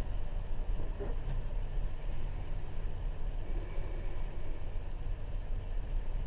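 Steady low rumble of a car driving on a tunnel road, tyre and engine noise heard from inside the cabin.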